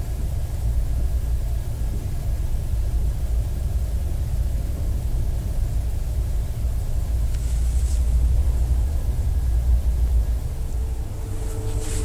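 Steady low rumble of a moving train, heard from inside a closed passenger coach: the wheels running over the rails.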